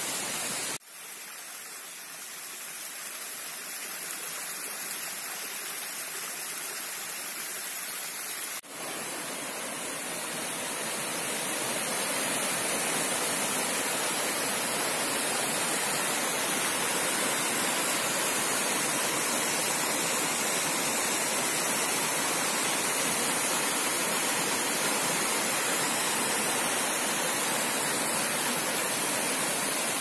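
Small mountain-stream waterfall cascading over layered rock ledges: a steady rush of water. It breaks off briefly twice, about a second in and about nine seconds in, and grows louder and fuller from about twelve seconds in.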